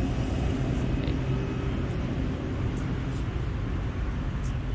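Steady outdoor background noise: a low, even rumble of the kind made by distant traffic and wind on the microphone.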